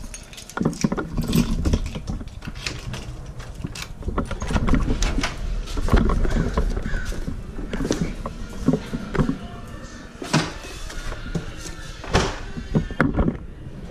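A front door being opened and a long cardboard box bumping and scraping as it is carried into the house: irregular knocks and clicks over the rumble of handling and footsteps.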